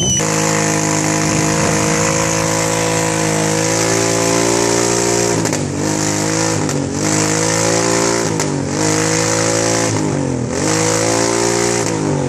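Motorcycle engine revving hard, held at high revs, then from about halfway the revs drop and climb back roughly every second or two.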